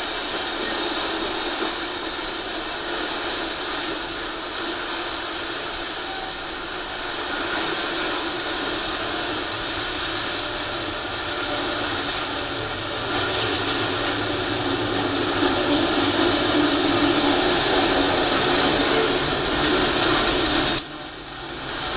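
Open-top coal hopper cars of a freight train rolling past, a steady noise of wheels on rails that grows somewhat louder in the second half. Near the end the sound drops away sharply for a moment and then builds again.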